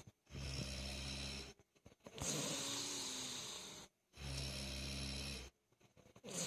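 A person snoring heavily: about three long snoring breaths with short silent pauses between them, some with a steady low rattle and others falling in pitch. Another breath starts near the end.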